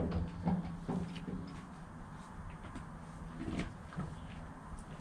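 A few faint knocks and clicks over a low, steady hum.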